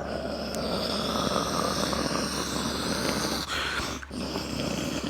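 Boeing 747's jet engines passing low on landing, a rough rumble with a whine that falls slowly in pitch.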